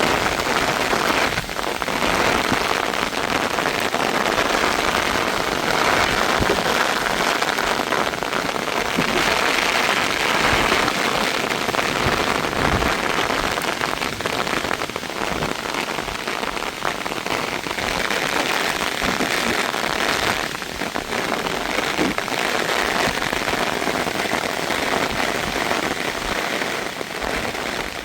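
Heavy rain falling steadily on a surface, a dense continuous patter with no letup.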